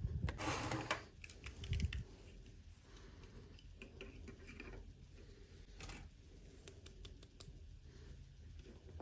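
Plastic toy packaging being handled and opened: a spell of crinkling and crackling in the first two seconds, then scattered small clicks.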